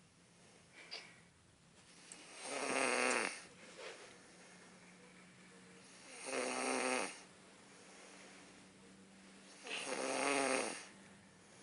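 Loud snoring: three long snores, one about every three and a half seconds, with quiet gaps between.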